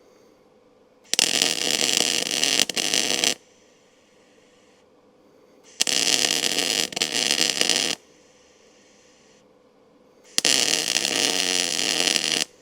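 Electric arc welder crackling and frying on steel frame pieces in three runs of about two seconds each, with short pauses between: tack welds or short beads being laid.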